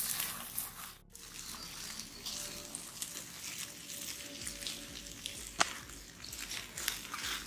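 Open wood fire crackling with scattered pops, one sharp pop about five and a half seconds in, as whole chickens roast over it.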